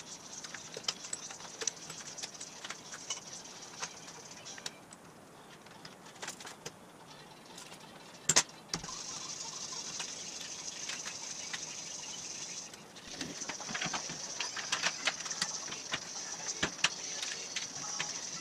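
Metal clinks, knocks and rattles from fitting a leaf spring and its mounting hardware to a tube front axle by hand, with one sharp knock about eight seconds in, over a steady hiss.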